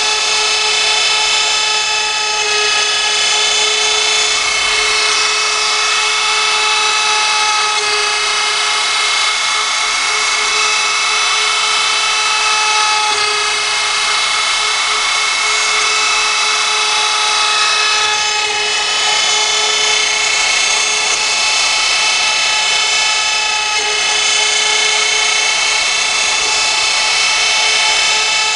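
CNC router spindle running at high speed while cutting a workpiece: a steady high-pitched whine over a cutting hiss, shifting slightly in pitch now and then as the load changes.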